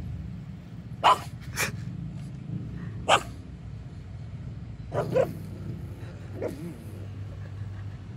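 A dog barking in short, sharp barks, about five or six of them spaced a second or two apart, inside a moving car's cabin with the steady low rumble of the car underneath.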